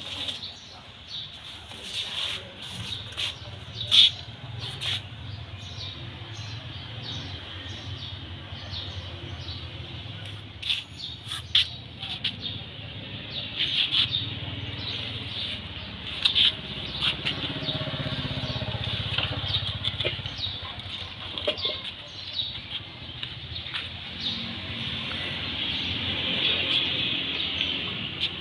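Birds chirping in short scattered calls over a steady low rumble.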